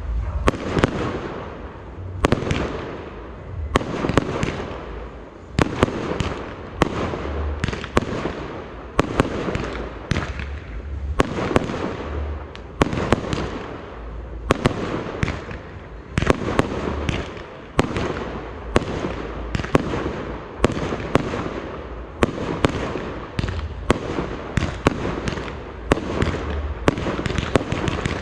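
Fireworks display: a dense run of sharp bangs from bursting shells, several a second at times, with a continuous rumble and echo between them.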